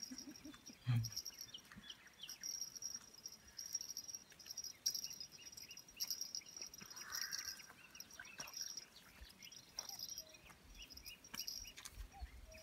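Small birds chirping over a high, continuous insect trill that swells and fades.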